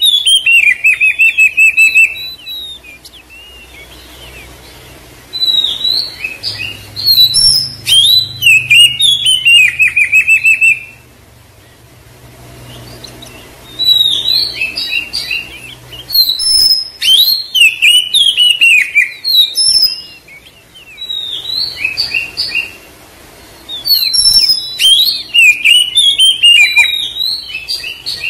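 Oriental magpie-robin (kacer) singing: about five loud bursts of rapid, varied whistles and quick falling trills, each a few seconds long, with short pauses between them.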